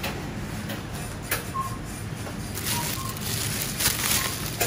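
Thin plastic grocery bags rustling and crinkling, busiest in the second half, with a few short high beeps.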